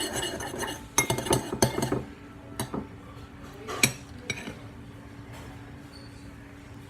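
A utensil stirring glue and detergent in a bowl: a second of scraping, then a quick run of clinks against the bowl and a few single knocks, after which it goes still.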